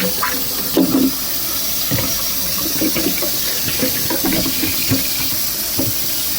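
Sink tap running steadily, with scattered knocks and clatter of things being handled under the water.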